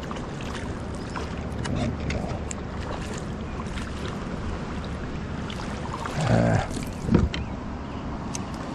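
Water sloshing and splashing around a kayak, with scattered small clicks and knocks, as a hooked freshwater drum is brought in alongside. A short pitched grunt is heard about six seconds in.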